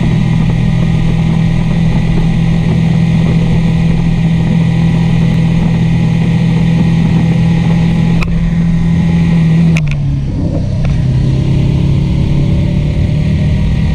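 Motorcycle engine running at road speed under wind rush on the microphone. Just before ten seconds in, after a couple of sharp clicks, the engine note drops as the throttle is eased off, then climbs again.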